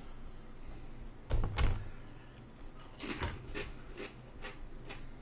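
A dull thump about a second and a half in, then a few short, light knocks and clicks, over a faint low hum.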